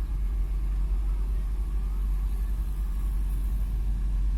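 Heavy diesel machinery, a dump truck and excavator at work, running with a steady low rumble.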